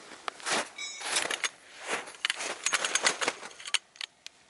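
Nylon tent fabric being handled, crinkling and rustling in quick irregular bursts, with a short metallic ring from a tent pole about a second in.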